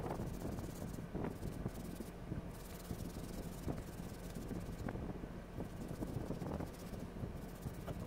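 Steel-wool scrubber rubbing wet over the copper heating element of an electric water heater: an irregular, gritty scratching with small clicks, scouring off mineral salt and rust deposits.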